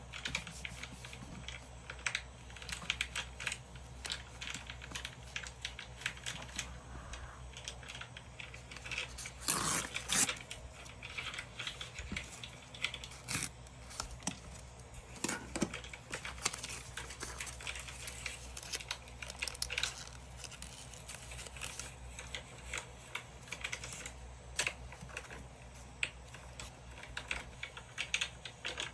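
Paper rustling and crinkling as pieces of vintage-style paper ephemera are handled, slid and pressed down on a journal page, with many small taps and ticks. There are a few louder rustles about a third of the way in and around the middle, over a faint low hum.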